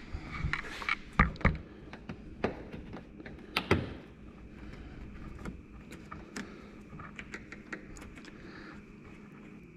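Hard plastic trim panels and push-pin clips on a Honda Talon side-by-side being pried off and handled. It is a string of sharp clicks and knocks, loudest in the first four seconds, then lighter scattered ticks.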